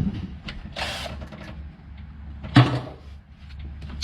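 Small mechanical clicks and clatter from parts and tools being handled and fitted, with a louder knock about two and a half seconds in, over a steady low hum.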